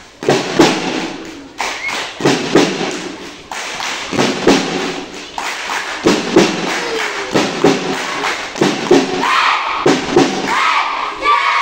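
A group of schoolchildren stamping on a concrete floor as they move forward in formation, making a loose beat of thumps about once or twice a second. Near the end the children start shouting together.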